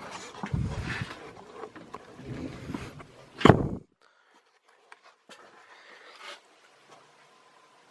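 Handling noise: rustling and scraping as a camera and fan parts are moved about, a single loud knock about three and a half seconds in, then near silence broken by a few faint clicks.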